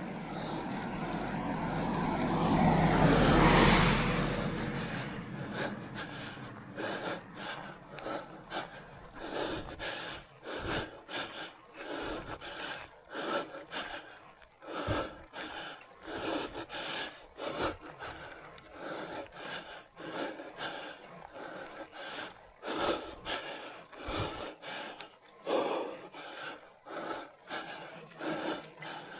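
A vehicle passes, rising to its loudest about three and a half seconds in and then fading. After it comes a cyclist's heavy, rhythmic breathing, about one breath a second, the laboured breathing of a rider on a steep climb of about 10% gradient.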